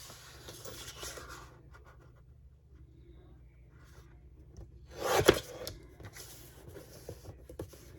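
Paper being handled and trimmed to size: light rustling and scraping, with one louder scrape lasting about half a second about five seconds in.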